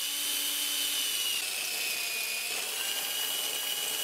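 DEKO cordless drill running at speed, boring a hole into a wall with a steady high motor whine.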